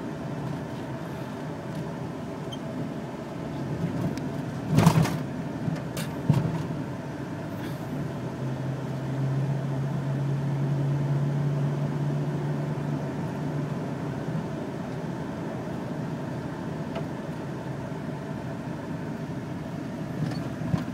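Road and engine noise inside the cab of a 2003 Chevrolet Avalanche Z71 driving on rough pavement. A loud clunk comes about five seconds in, followed by two lighter knocks a second later: something loose underneath the truck is bouncing around.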